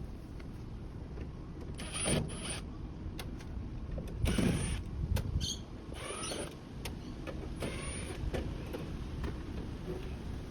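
Several short bursts of mechanical whirring and scraping, about two seconds in, in the middle and again near eight seconds, over a steady low hum.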